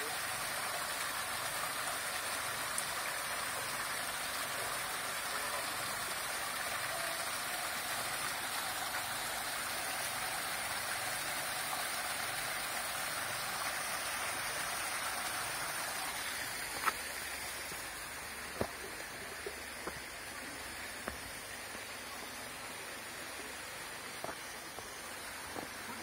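Small waterfall cascading over rocks into a pool: a steady rush and splash of water. The rush drops a little about two-thirds of the way through, and a few short sharp clicks follow.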